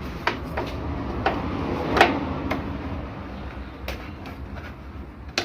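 Scattered sharp clicks and knocks over a low rustle, the loudest about two seconds in: parts of a washing machine's casing being handled as it is taken apart.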